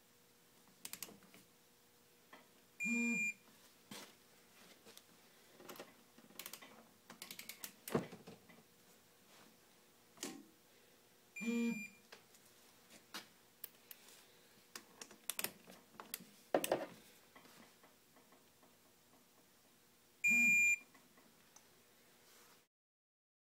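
Ratchet wrench clicking in short runs on the cylinder head nuts, with three short electronic beeps about eight seconds apart.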